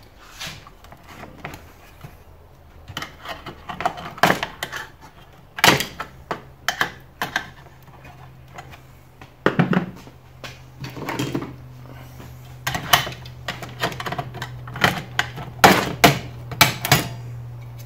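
Irregular clicks, snaps and clinks of a screwdriver and pliers prying at and breaking parts off a CRT TV's circuit board. A low steady hum comes in about six seconds in.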